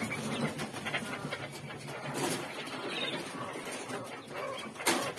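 Quail calling from wire-mesh cages, mixed with rustling and clicking as a bird is put into a cage. A sharp click near the end.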